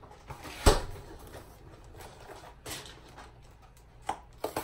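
Kitchen handling noises: a sharp knock about a second in, a brief rustle in the middle, and two lighter knocks near the end.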